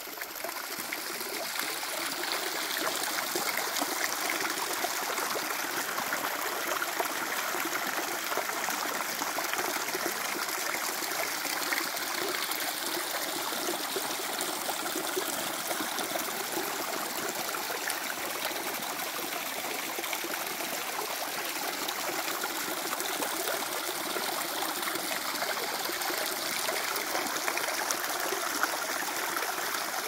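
Small forest waterfall: water spilling over rocks and splashing into a shallow pool, a steady trickling rush that grows louder over the first couple of seconds and then holds even.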